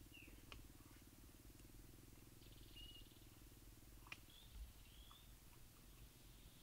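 Near silence: a faint low rumble with a fine rapid buzz that stops about four seconds in, a few faint high chirps, and two faint clicks.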